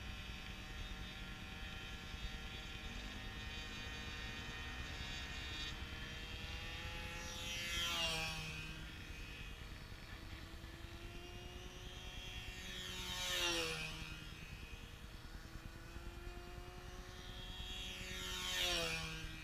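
Radio-controlled model aircraft's motor and propeller buzzing as it circles, making three fast passes about five seconds apart. Each pass gets louder and then drops sharply in pitch as it goes by.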